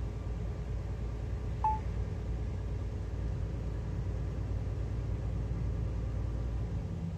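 Steady low engine and road rumble inside a truck cab while driving, with one short electronic beep about a second and a half in.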